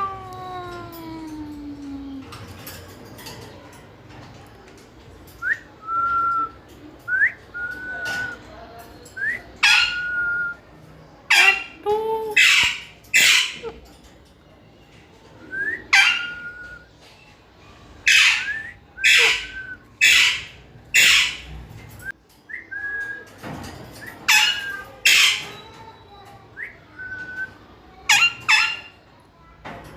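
Pet green parrot calling: short whistled notes that flick upward, mixed with loud, harsh screeches in bouts of two to four, with short pauses between the bouts.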